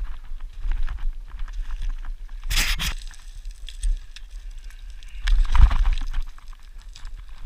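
Footsteps crunching on loose rocky ground, with wind rumbling on the microphone. Two louder scraping crunches come about two and a half seconds in and again near six seconds.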